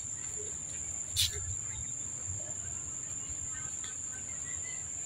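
Steady high-pitched drone of insects calling. A single short, sharp click sounds about a second in.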